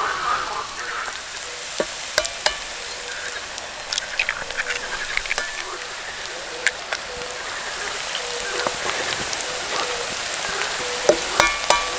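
Food sizzling steadily in a frying pan, with scattered sharp clicks and a brief metallic clink near the end.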